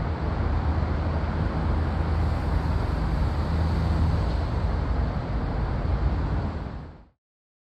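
Steady, loud, low engine rumble of vehicle noise that cuts off suddenly about seven seconds in.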